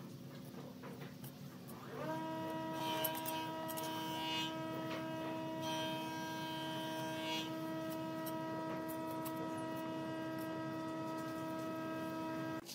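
A steady hum at one even pitch starts about two seconds in, holds for about ten seconds, then cuts off suddenly. Faint scraping clicks of a knife blade working wet cement sound over it.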